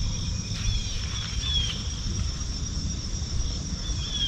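Insects trilling steadily in a high, continuous chorus, with a few short falling chirps over it and a low rumble underneath.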